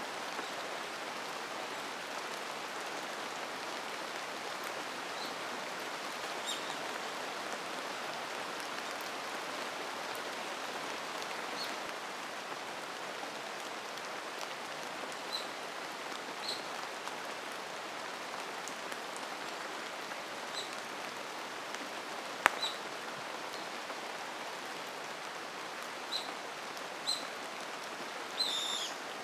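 Steady rain falling on a mountain forest. Short high bird chirps come every few seconds, with a quick run of them near the end. One sharp drip-like tap about 22 seconds in is the loudest sound.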